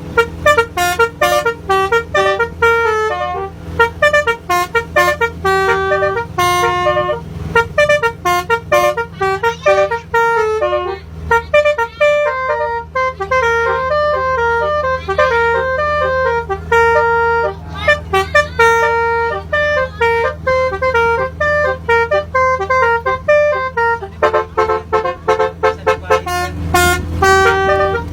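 Basuri telolet melody horn playing a long, fast tune of short notes stepping up and down, over a steady low hum.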